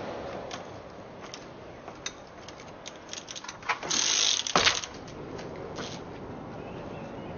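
Trials bicycle hopping on concrete blocks: scattered sharp clicks and taps from the bike and tyres, a brief scraping hiss just after four seconds in, then a hard landing thud at about four and a half seconds, the loudest sound.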